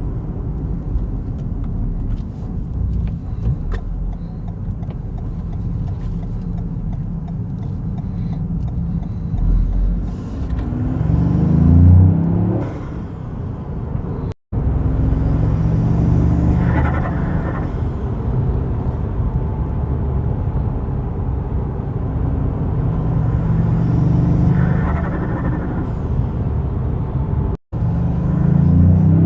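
Toyota GR Yaris turbocharged three-cylinder engine running and revving up under load, then easing off, with turbo flutter and blow-off hiss as the throttle closes. The sound cuts off abruptly twice.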